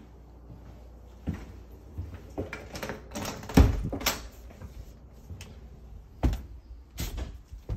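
A back door being unlatched and swung open, with a series of clicks and knocks, the loudest about three and a half seconds in. Two more knocks come near the end.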